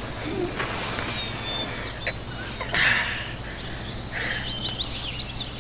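Outdoor ambience with small birds chirping: short, thin chirps, with a quick flurry of them near the end. There is a brief burst of rustling noise about three seconds in.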